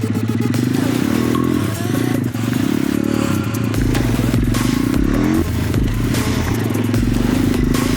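Loud small single-cylinder four-stroke pit bike engine being ridden, the revs climbing with the throttle a few times. The longest climb drops away abruptly about five seconds in.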